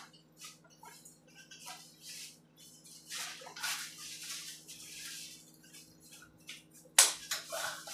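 Hands rubbing and kneading a knee during a hilot massage: scattered short rustling and friction sounds of skin and cloth, with a sharp, louder rustle about seven seconds in.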